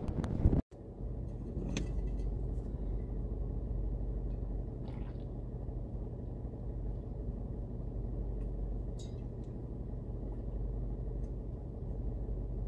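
Rushing wind noise that cuts off sharply under a second in, then the steady low hum of a car engine idling, heard from inside the cabin, with a few faint clicks.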